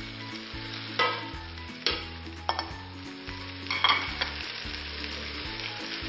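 Beef and sausage pieces frying in oil in a pot with a steady sizzle as diced bell peppers go in. A spatula stirs and scrapes against the pot, with a few sharp clatters, the loudest about a second and about four seconds in.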